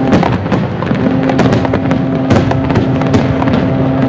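Fireworks display: aerial shells bursting in a rapid, continuous barrage of bangs and crackles.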